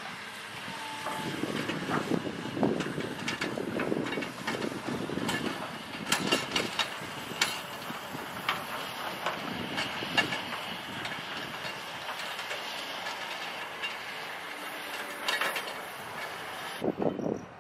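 Sand-loaded dump truck and full trailer driving over a rough dirt road: the diesel engine running under many sharp clanks and rattles from the steel bodies and trailer coupling.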